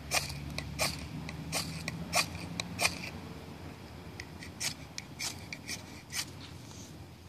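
Ferro rod struck again and again with a steel striker: a dozen or more short, sharp scrapes in irregular runs, with a short pause about halfway through. The sparks are not catching the wood shavings.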